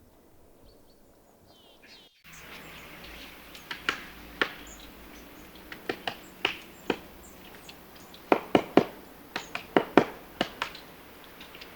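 Great spotted woodpecker hammering at a conifer cone to get at the seeds: irregular sharp pecks, singly and in quick bursts of two to four, starting about two seconds in. Faint high bird chirps sound in the background.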